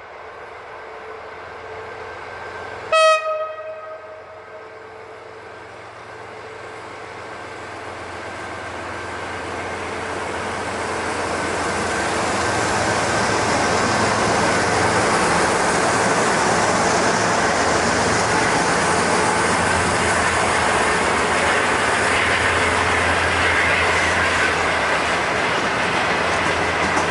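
Freight train led by two ST40s diesel locomotives: one short horn blast about three seconds in, then the locomotives and a long string of broad-gauge wagons passing close by, the rumble of wheels on rail growing louder and holding steady through the second half.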